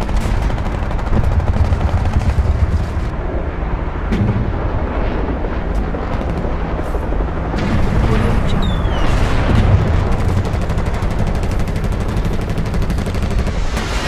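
Modern battle ambience: dense gunfire and machine-gun fire over a continuous low rumble of artillery and distant explosions. A short falling whistle cuts through about eight and a half seconds in.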